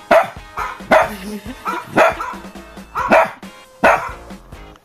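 A puppy barking at an even pace, five barks about a second apart, over background music.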